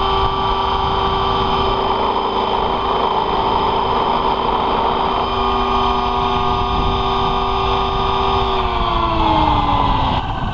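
RC Bell 222 scale helicopter on T-Rex 600 mechanics running on the ground with a steady whine from motor and rotor, which winds down in pitch near the end. The fuselage shakes too much for the model to be flown.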